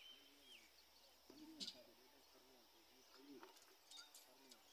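Faint dove cooing: a run of low, arching coos repeating every fraction of a second, with a couple of high bird chirps at the start.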